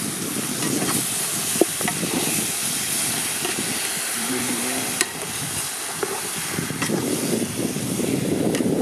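Raw chicken pieces with onions and tomatoes sizzling in a large pot over a wood fire while being stirred with a metal ladle, the meat shifting and the ladle giving a few sharp knocks against the pot under a steady sizzle.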